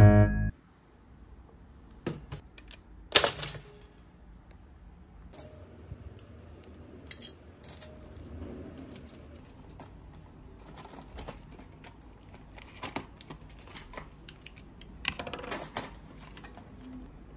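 Scattered light clicks and taps of small hard objects being handled, with two louder brief clattering bursts, about three seconds in and near the end.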